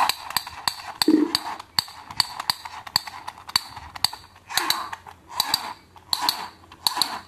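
Plastic toy pistol being handled, its hard plastic parts clicking and clacking in a quick, uneven string, with four short louder bursts in the second half.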